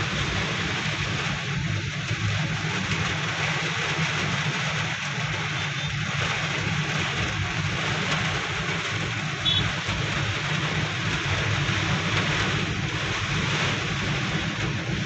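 Heavy rain falling on a car's roof and windshield, heard from inside the moving car: a dense, even hiss over the car's steady low hum.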